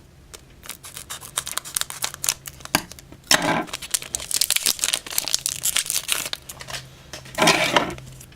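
Foil trading-card booster pack crinkling and being torn open, with quick rustles and clicks of cards being handled. There are two louder tearing stretches, about three and a half and seven and a half seconds in.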